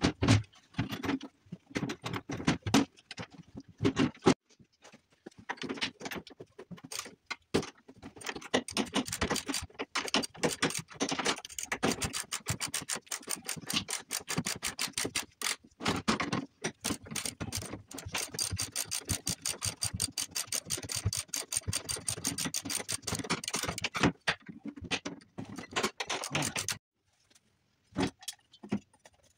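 Rapid, closely packed clicking and clinking of hand tools and metal parts as a snowmobile engine is reassembled, sped up in time-lapse. The clatter breaks off near the end, leaving a few scattered clicks.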